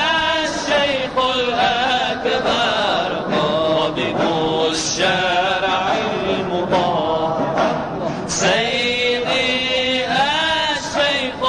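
Devotional vocal chanting: a voice sings a wavering, melismatic melody over a steady held note.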